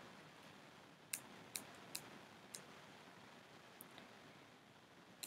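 Near silence with about six faint, sharp clicks spaced irregularly.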